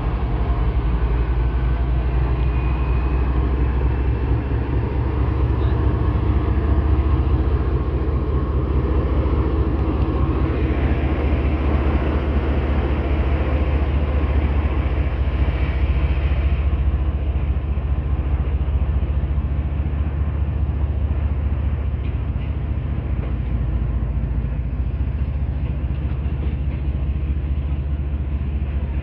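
GEU-40 diesel-electric locomotive running, with a steady deep engine drone under broad rumbling train noise.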